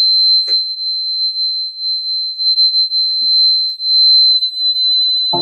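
JCB 3DX backhoe loader's cab warning buzzer sounding one continuous high-pitched tone, starting abruptly and holding steady, with the ignition switched on and the dashboard warning lights lit, the engine not running.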